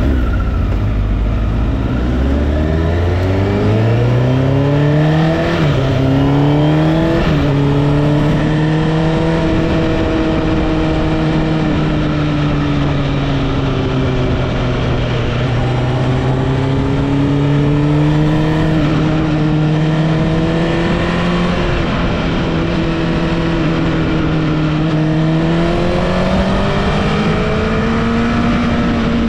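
Honda CBR1000RR (SC77) inline-four motorcycle engine pulling hard through the gears, with two quick upshifts about five and seven seconds in. It then holds at fairly steady revs, easing down and back up, and climbs again near the end.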